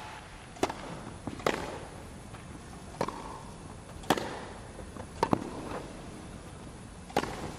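Tennis ball struck back and forth by rackets in a rally: about six sharp hits, roughly a second apart.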